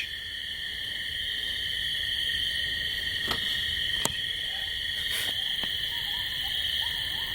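A steady, high night-insect chorus of crickets and katydids. In the second half, faint yips and short howls of a pack of coyotes join in, with a few sharp clicks.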